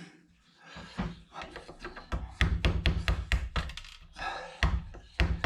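A small hand tool prying and knocking at a computer motherboard's components: a run of quick sharp clicks and taps, thickest about two seconds in and again near the end.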